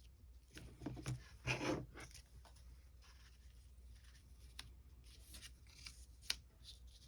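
Paper being handled during paper crafting: two louder rustles a second or so in, then light rustling and a few small ticks and clicks.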